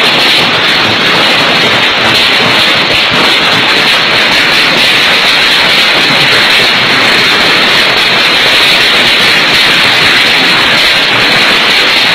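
Hailstorm with strong wind: a loud, steady rushing roar with no single impacts standing out.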